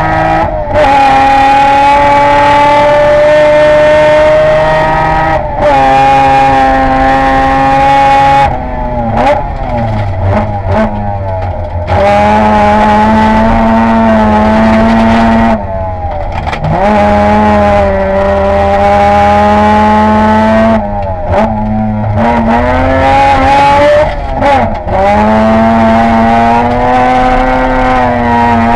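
Peripheral-ported rotary engine of a rally car heard from on board, running hard at high revs. It drops and climbs in pitch at each gear change and lift, and gives a scatter of sharp cracks in the two off-throttle stretches.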